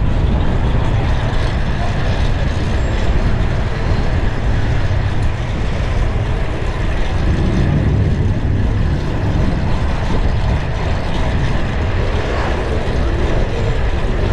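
Steady rush of wind buffeting the microphone and road noise from a fixed-gear bicycle ridden at speed through city traffic, with a heavy, choppy low rumble.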